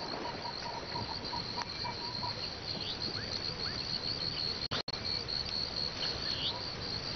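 Insects chirring in a steady, fast-pulsing high trill. A second, lower pulsing chirr sounds for the first second or so, and the sound drops out for an instant near five seconds in.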